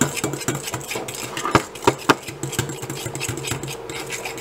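Fork mashing and beating banana and egg in a bowl: quick, irregular clicking and scraping of the fork against the bowl, with a few sharper clinks around a second and a half to two seconds in. A steady hum runs underneath.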